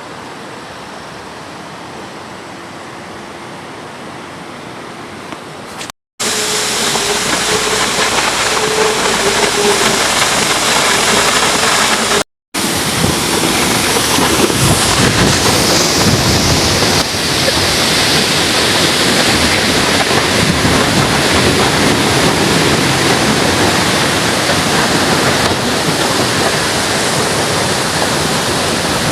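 Waterfall after heavy rainfall: steady rushing water. It is quieter for the first six seconds and louder after a short break, and it drops out briefly once more near the middle.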